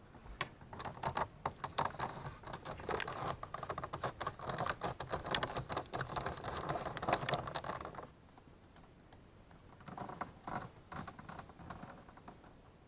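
Rapid small plastic clicking and rattling as a small flat-blade screwdriver works at the locking clip of a power mirror switch's wiring plug. The clicking is busy for about eight seconds, then drops to a few quieter clicks.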